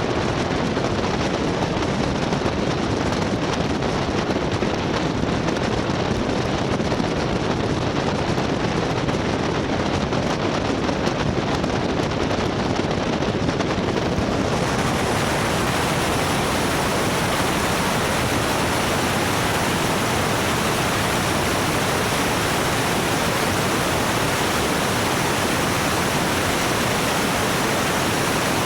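Steady engine and airflow noise in a light aircraft's cabin. About halfway through, the sound turns abruptly brighter and hissier in the highs while the overall loudness stays the same.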